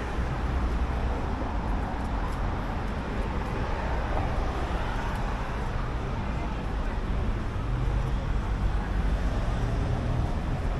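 Steady city road traffic: a continuous low rumble of passing vehicles, with no single event standing out.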